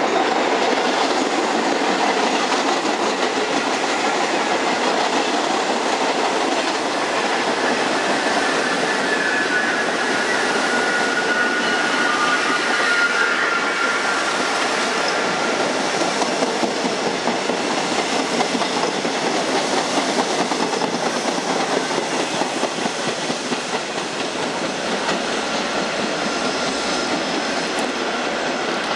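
An R68 subway train running through the station at speed on the express track without stopping: a loud, steady clatter of steel wheels on rail with rhythmic clicking over the rail joints. A faint wheel squeal comes in about ten seconds in and fades out a few seconds later. The sound eases a little as the train draws away near the end.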